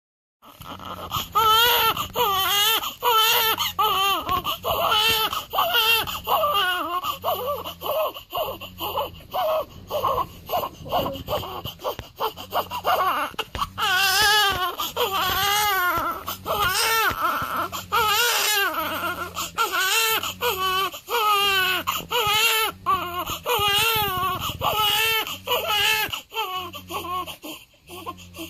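Newborn baby crying, a long run of wavering wails one after another, starting abruptly about half a second in.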